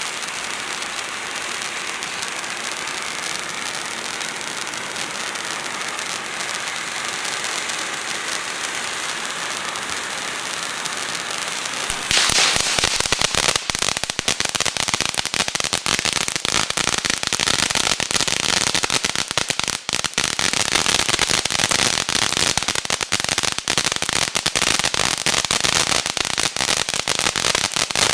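Consumer firework fountain burning: a steady spraying hiss, then about twelve seconds in it breaks into a louder, dense crackle that keeps going.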